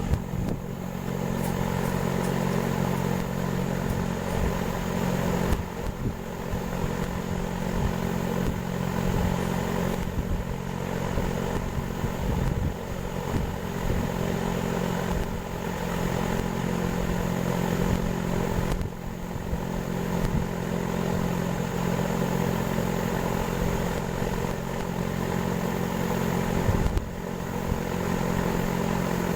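A motor running steadily with an even hum, and a few light knocks along the way.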